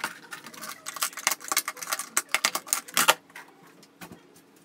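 Quick clicking and clattering of small hard objects being handled, ending in a louder knock about three seconds in, then quiet handling.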